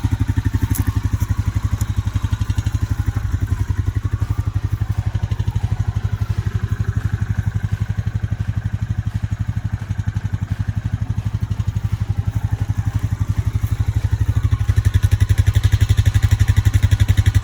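Honda Rancher 420 ATV's single-cylinder engine running steadily with a rapid, even firing beat, getting louder about three seconds before the end.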